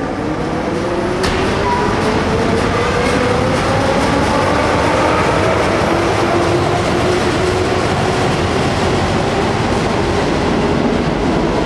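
Tyne and Wear Metro battery locomotives passing close by: loud running rumble of wheels on the rails, with a pitched whine that slowly rises and then falls. There is a sharp click about a second in.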